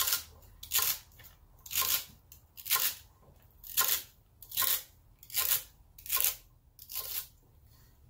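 Kitchen knife chopping celery stalks on a wooden cutting board: about nine crisp, crunching chops at an even pace of a little over one a second.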